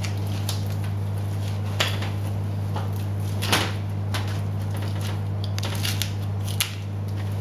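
A steady low machine hum, with a few short clicks and knocks as a boning knife cuts lean trimmings from the inside of a beef rib cage and the meat and bones shift on a stainless steel table.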